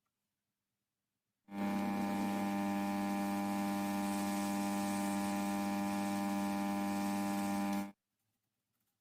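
A steady electric buzz that starts suddenly about a second and a half in, holds at an even level for about six seconds, then cuts off abruptly.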